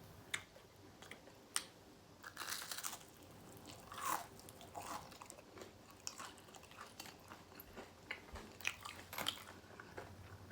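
Close-up crunching and chewing of fried pickles in a crisp hot Cheetos coating, a run of short, crisp crunches at an uneven pace.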